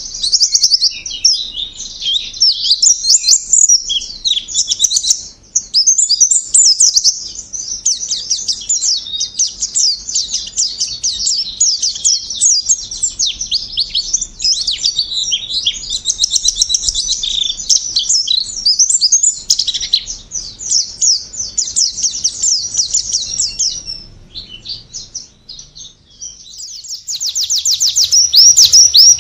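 White-eye (pleci) singing a long, unbroken run of fast, high-pitched twittering song full of rapid trills. It dips softer for a moment about three-quarters of the way through, then breaks into a loud, even, rapid trill near the end.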